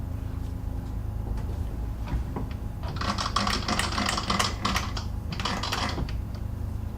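Rapid clicking and clattering from about three to six seconds in, as a lathe parting tool is handled and set in the tool post, with a few single clicks before it and a steady low hum underneath.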